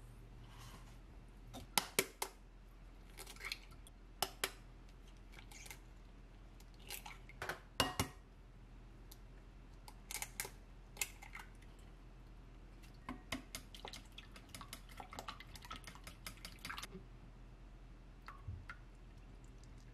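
Kitchen prep sounds. A kitchen knife knocks and scrapes on a wooden cutting board as chopped pickled radish is gathered up. About ten seconds in, eggs are cracked into a ceramic bowl. Then chopsticks beat the eggs in the bowl with a run of quick small clicks.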